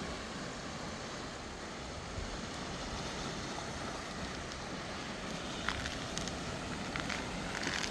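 Steady wind and sea surf noise, with a few faint clicks in the second half.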